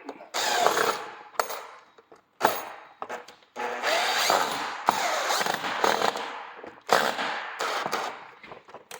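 Cordless drill/driver driving a screw into a vertical-blind mounting bracket, running in several short stop-start bursts with the motor's whine rising and falling.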